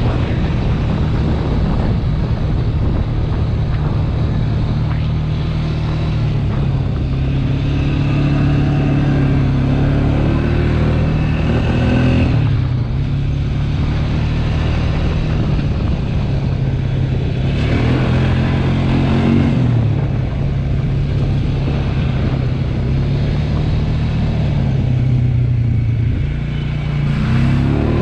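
ATV engine running while riding, its pitch rising and falling as the throttle opens and closes several times.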